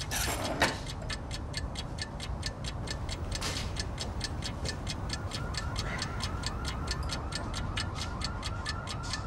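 Fast, steady clock ticking, about five ticks a second. A short swish comes just after the start, and from about halfway through a short rising chirp repeats along with the ticks.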